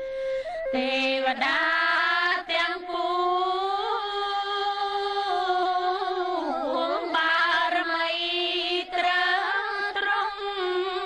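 A slow song in Khmer: a singer holds long, wavering notes that slide between pitches.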